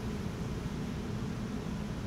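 Steady low hum and hiss of background room noise between swings, with no bat contact.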